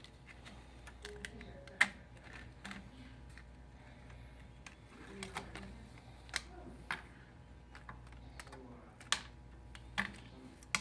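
Sparse small clicks and taps, a second or more apart, with a few faint scrapes, from cards and tools working against a smartphone's glass and frame as the adhesive under the display is sliced. A low steady hum lies under them.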